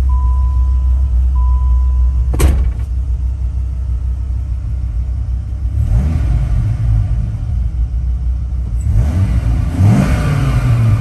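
Dodge Viper GTS ACR's 8.0-litre V10 idling, blipped briefly about six seconds in and revved harder near the end, the pitch rising and falling each time. Over the idle, a steady electronic beeping tone sounds until a sharp thud about two seconds in.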